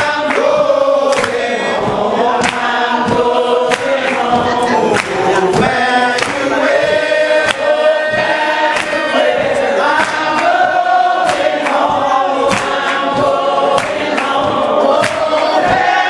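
A congregation singing a hymn unaccompanied, men's and women's voices together in a slow, sustained line, in the a cappella style of Primitive Baptist worship.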